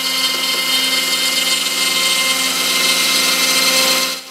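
X-Carve CNC machine's stock Inventables spindle running and routing through plywood: a steady high whine over the hiss of the cutter in the wood. The level drops sharply near the end.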